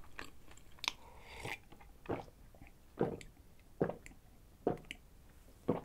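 Close-miked drinking from a mug: a short sip, then about five swallowing gulps, roughly one a second.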